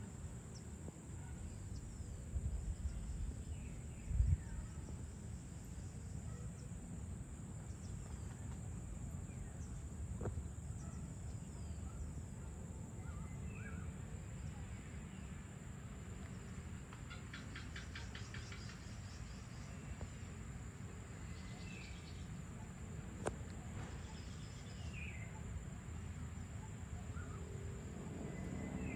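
Outdoor evening ambience: a steady high insect drone over a low rumble, with scattered short bird chirps and a rapid run of ticking calls about two-thirds of the way through. A brief low thump comes about four seconds in.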